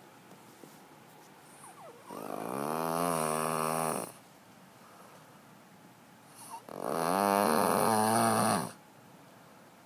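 A child snoring really loud: two long snores, each about two seconds, about four and a half seconds apart, with quiet breathing between.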